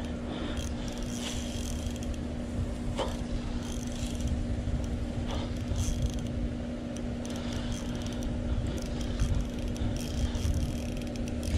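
Steady low rumble with a constant low hum, broken by a few scattered light clicks.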